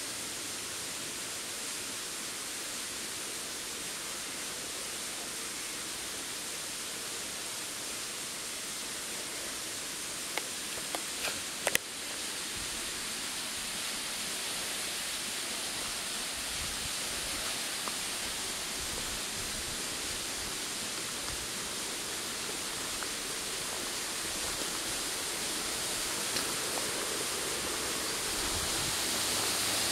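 Steady rush of running water, growing louder near the end. A few short clicks about ten to twelve seconds in.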